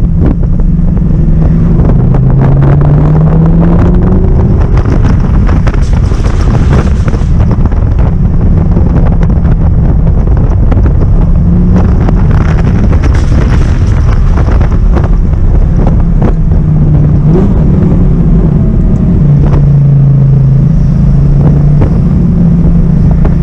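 Audi R8's naturally aspirated 5.2-litre V10 under way, its engine note rising in pitch under acceleration and dropping back several times, with some wind noise.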